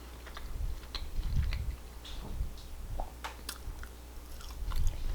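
Close-up mouth sounds of someone biting and chewing French fries, with scattered soft crunches and wet clicks.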